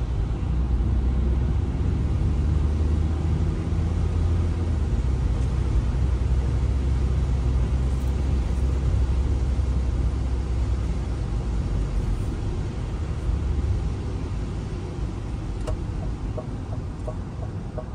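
Steady low rumble of a moving car's engine and tyres, heard from inside the cabin while driving, easing slightly near the end.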